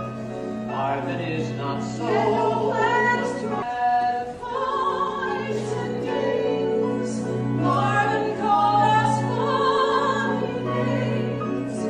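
Musical-theatre cast singing together over instrumental accompaniment, with several voices overlapping. There is a short drop in the singing about four seconds in.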